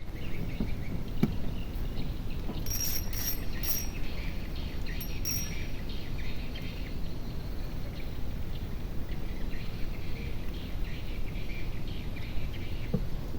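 Outdoor river ambience: a steady low rumble, with a few short, high chirps from a small bird or insect about three to five seconds in.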